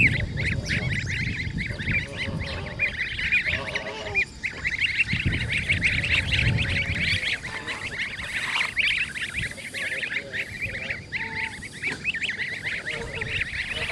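A brood of Muscovy ducklings peeping continuously, many short high-pitched peeps overlapping, with an occasional lower call and a low rumble through the first half.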